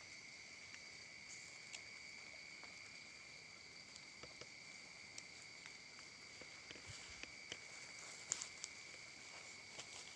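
Faint steady insect chorus, two high continuous drones, with scattered small clicks and crackles from footsteps in undergrowth, a louder cluster about eight seconds in.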